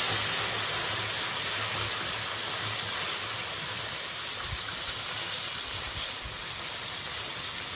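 A large wok of chicken stew hissing and sizzling over a wood fire, a steady hiss with no break.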